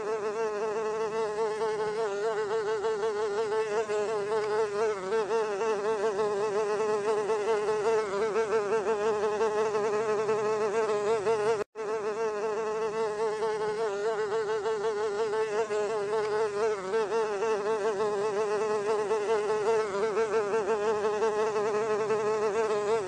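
Housefly buzzing in flight: a steady, slightly wavering buzz that cuts out for an instant about halfway through.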